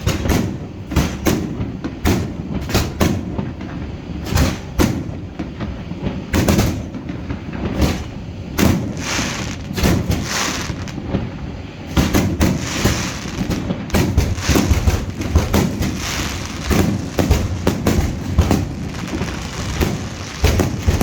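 Fireworks display: an irregular, rapid series of loud shell bursts and bangs, growing denser from about twelve seconds in, with hissing crackle between some of the bursts.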